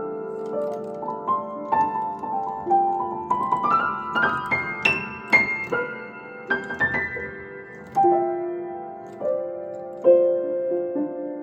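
1894 Kranich & Bach seven-foot Empire grand piano being played: a run of notes climbing to a high peak about halfway through, then descending into held chords that ring on.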